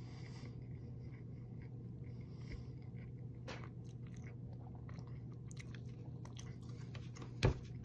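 A person chewing a bite of food, with scattered small clicks and a steady low hum underneath; a short thump comes near the end.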